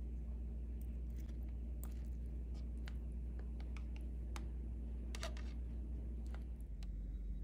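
Scattered faint clicks and light taps over a steady low hum.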